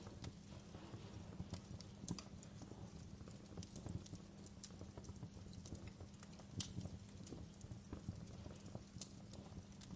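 Wood fire burning in a fireplace: irregular sharp crackles and pops over a steady low rumble of flame.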